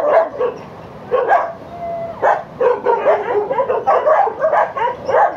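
Many dogs barking and yipping over one another. It thins out for a moment in the first two seconds, then becomes a continuous din of barks.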